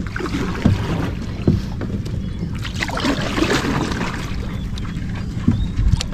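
Water splashing, with a few sharp knocks, over a steady low wind rumble on the microphone; the splashing is densest in the middle.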